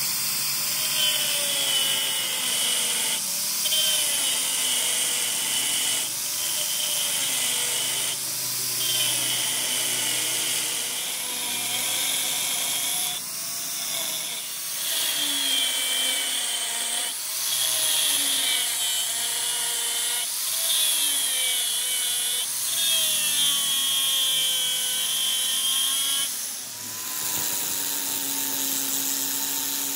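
Handheld angle grinder grinding down the weld on a repaired steel square shaft: a steady high whine and grinding hiss, the motor's pitch sagging and recovering as the disc is pressed onto the metal, with several brief breaks where it lifts off.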